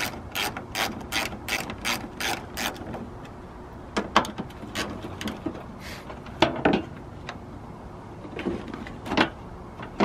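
Hand socket ratchet clicking as the bolts holding a headlight are loosened: a quick run of clicks, about four a second, for the first few seconds, then slower scattered clicks.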